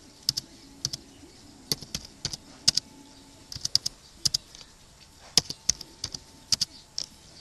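Computer keyboard being typed on: irregular single keystrokes and quick runs of two or three clicks, with short pauses between.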